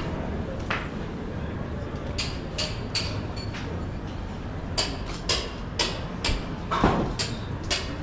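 Pedestrian street ambience: a steady background hum and murmur, with hard footsteps clicking on the pavement at about two a second from about five seconds in.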